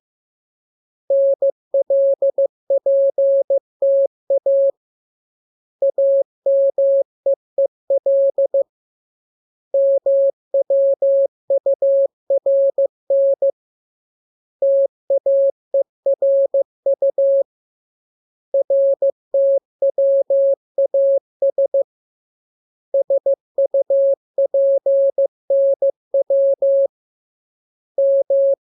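Morse code practice tones: a single mid-pitched beep keyed in rapid dots and dashes, sent in groups of characters a few seconds long with pauses of about a second between groups.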